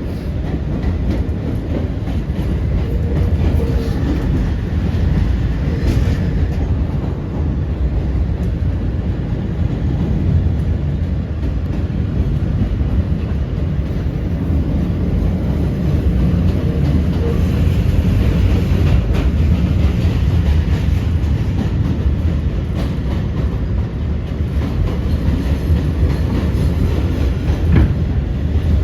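Kawasaki R211A subway car running at speed between stations, heard from inside the car: a steady low rumble of wheels on the track with scattered clicks from rail joints.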